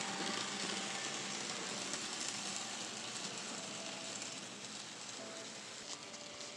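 N scale model passenger trains running on the layout's track: a steady rushing rattle of small wheels on rail and motor whir, slowly fading toward the end.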